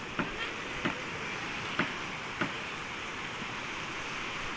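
Sea waves washing on the shore, a steady rushing hiss, with a few short sharp knocks in the first half.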